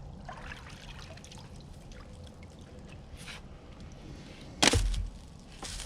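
Water trickling and dripping, with a loud sudden splash about four and a half seconds in and a smaller one near the end.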